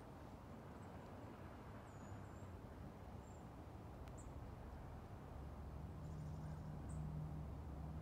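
Quiet street ambience with a few faint, short high bird chirps. A low vehicle engine hum grows louder from about five seconds in.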